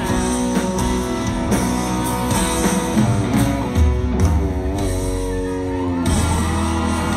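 Live band music through an outdoor PA, a woman singing over electric guitars and drums, holding one long wavering note about four seconds in.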